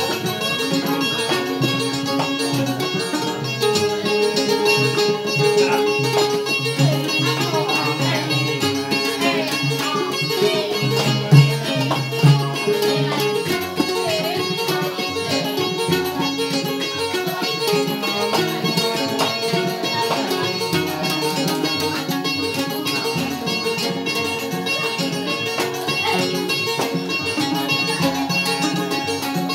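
Live keroncong music played on acoustic guitar and small ukulele-type plucked instruments, strummed and plucked together in a steady rhythm.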